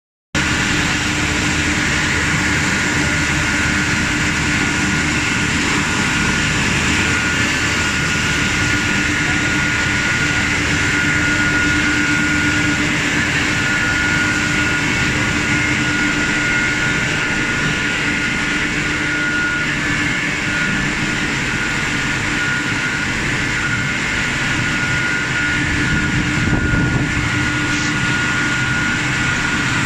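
Wood-plastic composite factory machinery (extruders, mixers, fans) running: a loud, steady industrial din with a constant high whine over a lower hum.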